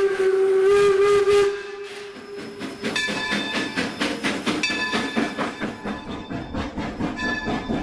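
Steam locomotive whistle blowing one long steady blast that stops just under three seconds in, followed by the locomotive's rapid exhaust chuffs and the clatter of the train rolling past.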